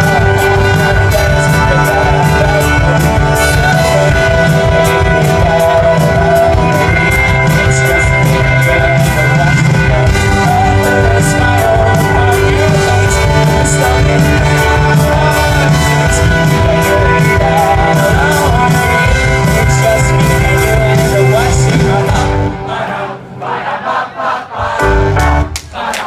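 Live indie rock band playing with a steady beat and a singer. About 22 seconds in, the music breaks off and the crowd cheers and shouts, with a brief burst from the band near the end.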